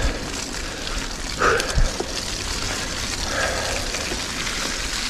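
Mountain bike being ridden over a rough trail: steady tyre and rattle noise picked up by the bike-mounted camera, with a couple of sharp knocks a little under two seconds in.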